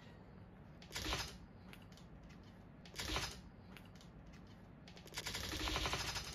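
Cats' claws scrabbling on a wooden tabletop as kittens jostle against their mother: three bouts of rapid clicking and scratching, about a second in, about three seconds in, and a longer one near the end.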